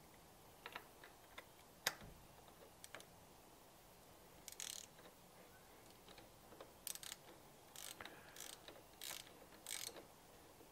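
Faint clicking of a Craftsman ratchet wrench turning a motorcycle fork cap down into the fork tube: a few single clicks early on, then short runs of ratcheting strokes about once a second through the second half.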